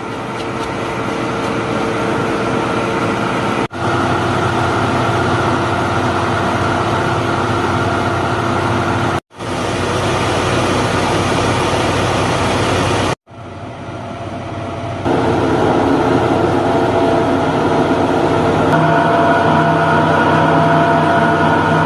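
A farm machine's motor running steadily, in several short takes joined by abrupt cuts, the pitch of its hum shifting slightly from take to take.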